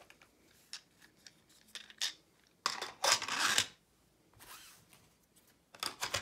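Small hard objects being handled: scattered clicks and taps, a rasping slide of about a second starting nearly three seconds in, and a quick run of clicks near the end.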